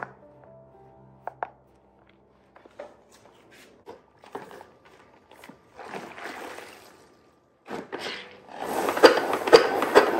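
Kitchen cleaning: scattered light knocks and clicks of things being handled, then, about two seconds before the end, a loud run of rapid rubbing strokes.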